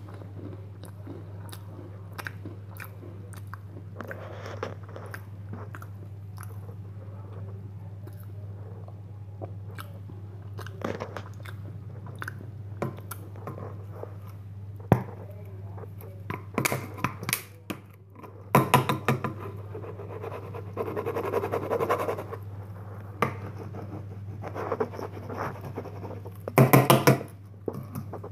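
Close-up eating of a RITZ cracker sandwich: crunching and chewing, with scattered small crunches and denser bouts of crunching in the second half and a loud burst near the end, over a steady low hum.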